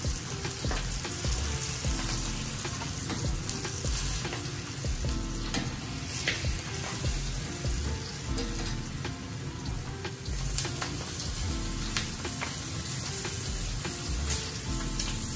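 Flour-coated turkey wing pieces frying in shallow oil, browning with a steady sizzle. Occasional sharp clicks come from metal tongs against the pot as the pieces are turned.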